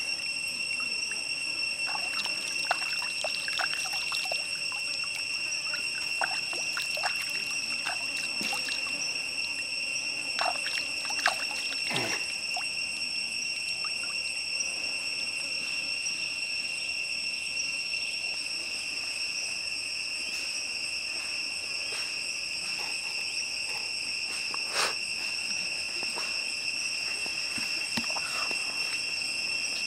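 A steady, high-pitched insect trill over a trickling stream, with scattered clicks and a few sharper knocks from a knife working raw chicken legs, the loudest of them about a third of the way in and once more later.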